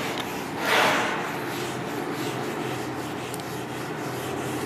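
A handheld eraser wiping marker off a whiteboard in rubbing strokes, with one louder swipe about a second in.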